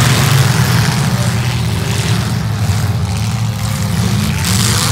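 Engines of several demolition-derby cars running hard together, a loud, rough, continuous rumble.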